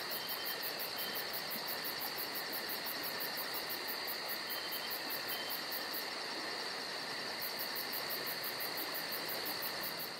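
Crickets chirping in a steady chorus: a fast, even, high pulsing of about six chirps a second over a continuous high trill. The pulsing drops out briefly about two-thirds of the way through.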